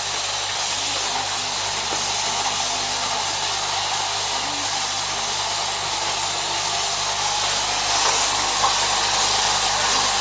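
Automatic bottle-cap assembly machine running: a steady whirring, hissing mechanical noise from its feeder, conveyor and pneumatic pressing heads, with one sharp click near the end.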